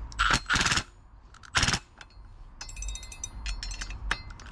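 Cordless drill driving the rear belt-pulley bolts tight in three short bursts, followed by a run of fast clicking about a second long.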